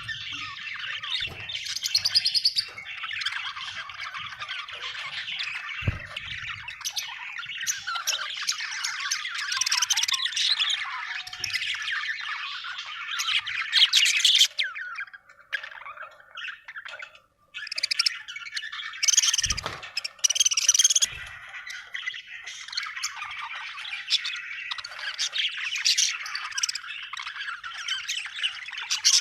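Budgerigars chirping and warbling nonstop, with sharper squawks here and there and a brief lull about halfway through.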